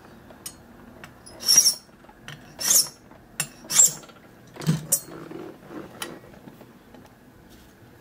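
A needle file rasping across a key blank held in an impressioning handle: three short strokes about a second apart, then a few light clicks. The file is lowering the cut at position four, where the impression mark showed.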